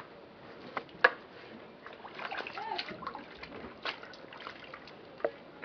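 Water splashing and dripping in a plastic basin as dark trousers are hand-washed, dunked and lifted out. The splashes come irregularly, the sharpest about a second in.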